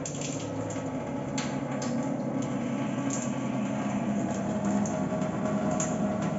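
Reverse-osmosis water purifier's booster pump humming steadily while a thin stream of reject water from its drain line splashes into a stainless steel sink.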